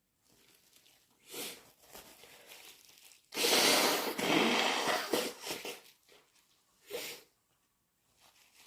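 A person blowing their nose wetly: one long noisy blow that starts suddenly and lasts about two and a half seconds. It comes after a short breath and is followed by a brief sniff about three and a half seconds later.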